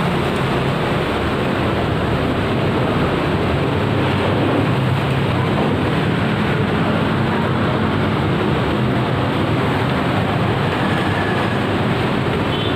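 Steady, loud rumbling noise with no distinct events or breaks.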